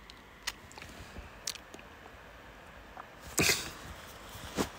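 Quiet room with a few faint clicks, then a short breathy noise about three and a half seconds in and a smaller one near the end.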